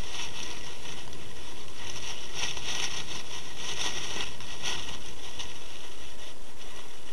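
A doe (deer) chewing close to the microphone: a run of short, repeated chewing crunches, densest in the middle, over steady hiss.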